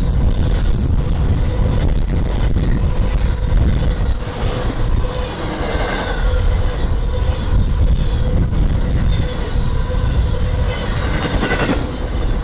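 BNSF freight train rolling past, a loud steady rumble of wheels on rail with scattered clicks of wheels over rail joints.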